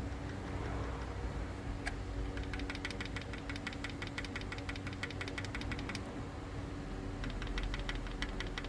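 2009 Honda CR-V petrol engine idling with the valve cover off, its valve train ticking rapidly and evenly in two stretches, about two seconds in and again near the end. The ticking comes from excessive valve clearance: the valves are too loose and some are sticking, and they need adjusting.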